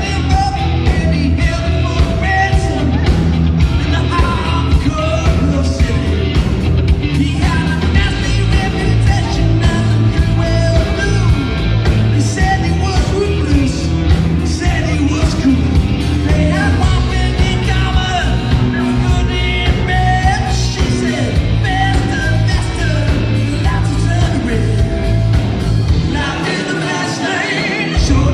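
Live rock band playing loud: electric guitars, bass guitar and a drum kit, with a sung lead vocal over them. The low bass drops out about two seconds before the end.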